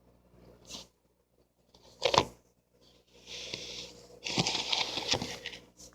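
Slime being handled: a sharp crackle about two seconds in, then a stretch of crackling, tearing noise with small clicks.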